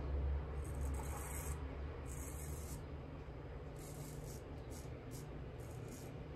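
Straight razor scraping through lather and stubble on the cheek in a series of short strokes: two longer strokes in the first three seconds, then quicker, shorter ones.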